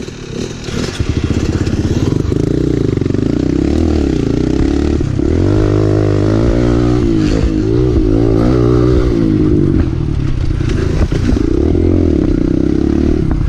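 Kawasaki KLX 140L dirt bike's single-cylinder four-stroke engine pulling under load, its pitch rising and falling repeatedly with the throttle. It picks up about a second in and keeps running hard.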